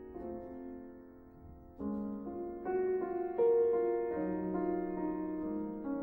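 Background music: a slow piece of sustained, ringing notes, softer for the first two seconds, then fuller as new notes come in every half second or so.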